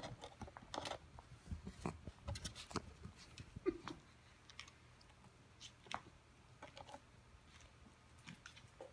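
Small dog mouthing and gnawing a large knotted rawhide bone: faint, irregular clicks and crunches of teeth on rawhide, busier in the first few seconds and sparser after.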